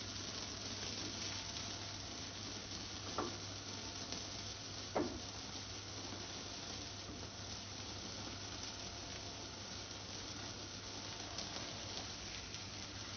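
Carpet being dragged across the floor by a carpet winch: a steady scraping hiss over a low hum, with two short knocks about three and five seconds in.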